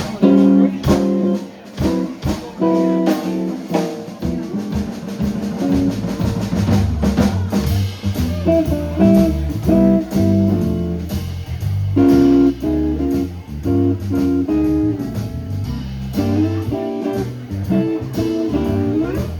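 Live blues band playing: lead guitar picking a run of notes over drums, with the bass guitar coming in about six seconds in and walking under the guitars for the rest of the passage.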